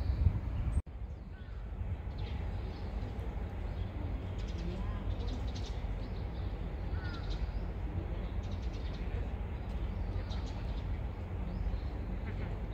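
Park birds calling in short repeated bursts of high chirps over a steady low rumble, with a sudden break in the sound a little under a second in.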